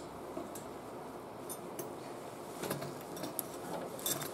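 A few scattered metal clicks and scrapes as locking pliers twist thin steel mechanics wire onto a lawnmower's brake-bail cable.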